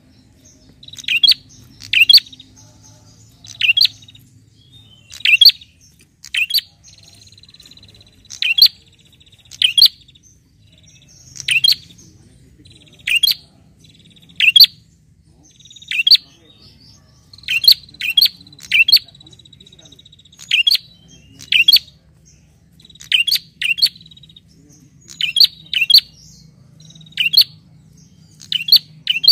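Caged prenjak, a rufous-headed tailorbird, giving loud, sharp, high calls, one every second or so, sometimes two or three in quick succession. A faint, thin, steady high buzz runs between the calls.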